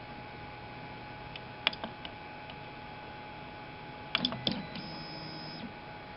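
3D printer running with a steady hum, a few sharp clicks about two seconds in and a cluster near four seconds, then a short pitched buzz just under a second long.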